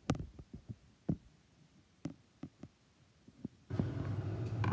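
Handling noise from a phone or tablet being adjusted in its stand: a string of light clicks and knocks, about eight over three and a half seconds. Near the end a steady low hum starts suddenly.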